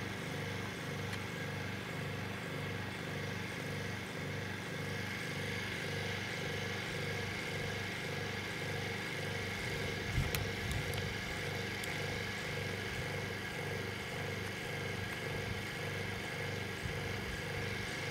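A machine running steadily with a regular low throb, like an engine or motor at idle. There is a brief knock about ten seconds in.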